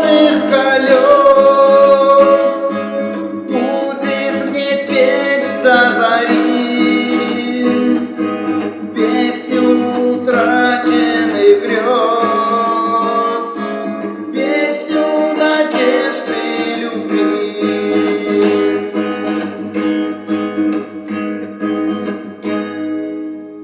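Acoustic guitar strummed and picked under a male voice singing long drawn-out notes without clear words, the closing bars of a song. The music fades out near the end.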